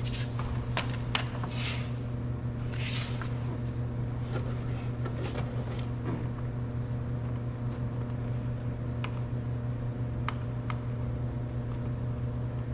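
Steady low machine hum, with a few sharp clicks and short scrapes of tools and small parts being handled at a car door, clustered in the first three seconds and a few more faint clicks later.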